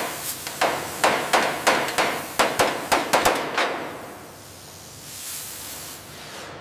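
Hammer striking a steel beam: about a dozen sharp metal strikes, roughly three a second. They stop about three and a half seconds in, leaving a soft hiss.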